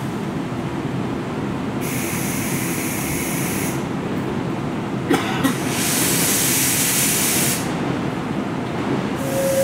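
Subway station ambience: a steady low rumble, with three spells of hissing a second or two long that start and stop abruptly, and a few light clicks about halfway through.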